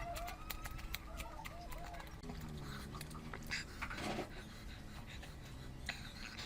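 Close-miked eating sounds: wet chewing and smacking clicks, with heavy breathing and a short low hum in the middle.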